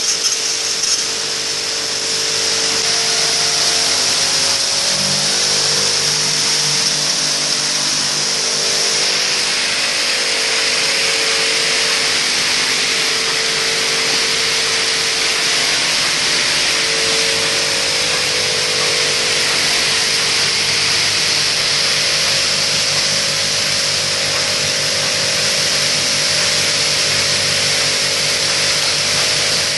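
Coil nail welding machine running steadily: a constant loud hiss with a low hum and a mid-pitched tone that fades in and out.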